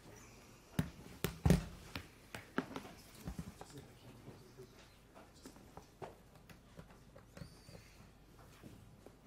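Irregular knocks, taps and clicks of equipment being handled near a lectern microphone, with the loudest knock about one and a half seconds in.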